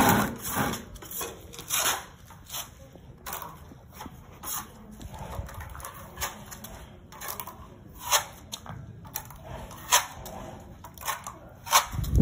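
Steel plastering trowel scraping skim coat across drywall in short, uneven strokes, one every half second to a second.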